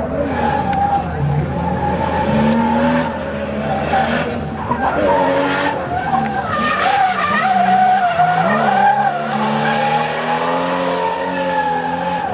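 Nissan S14 drift car's engine held at high revs, its pitch rising and falling through the slide, over the rough hiss of the rear tyres spinning and skidding on the tarmac.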